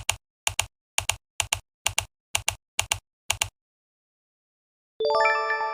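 Typing sound effect: eight evenly spaced double clicks like keystrokes, about two a second, then they stop. About five seconds in, a bright chime of several notes rings out and holds.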